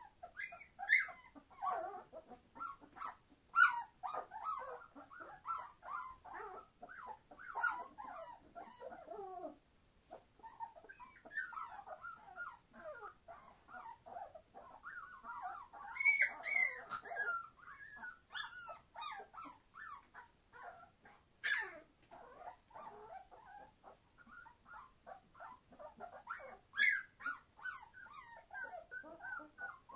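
A litter of three-week-old Entlebucher Mountain Dog puppies being very noisy: many short, overlapping high-pitched cries and squeals, with a brief lull about ten seconds in.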